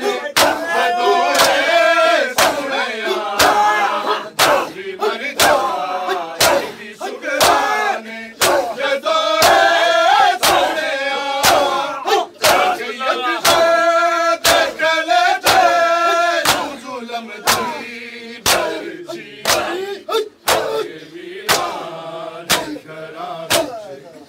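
Group of men doing matam, slapping their bare chests in unison in a steady rhythm a bit under two strikes a second, while a crowd of male voices chants a Punjabi nauha (mourning lament).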